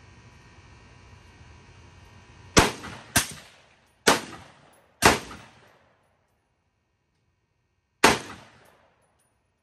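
Five shots from a Ruger SFAR semi-automatic rifle, each trailing off in a short echo. The first two come about half a second apart, the next two about a second apart each, and the last follows about three seconds later.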